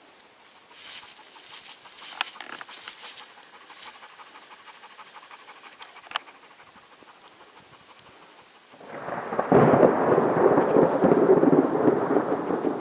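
A dog moving over dry leaf litter with a plastic bucket: light rustling and a couple of sharp knocks. About nine seconds in, a much louder steady rough noise takes over.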